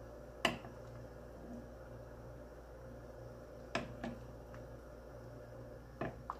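Metal ladle clinking against a steel pot as broth is ladled over a whole chicken simmering in it: five sharp clinks at uneven intervals, over a steady low hum.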